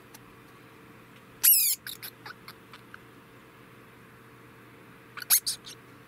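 Adult male degu calling: a loud, high squeaky call about a second and a half in, followed by a string of short chirps, and another quick burst of chirps near the end.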